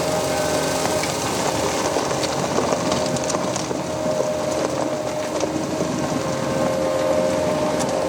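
Ropa Euro Tiger self-propelled sugar beet harvester with its V8 engine, running steadily while it lifts beets. A constant machine drone with a steady whine, and a few light knocks.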